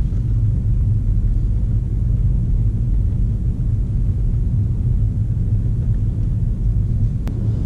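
Steady low rumble inside the cabin of a 2015 Volkswagen Golf GTE plug-in hybrid on the move, its 1.4-litre turbo petrol engine running to charge the battery, mixed with tyre noise on brick paving. A single faint click near the end.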